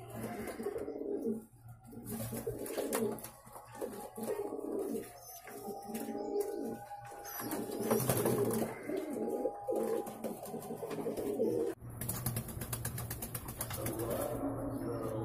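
Fancy pigeons cooing repeatedly, mixed with splashing and rustling from birds bathing in a shallow tub of water.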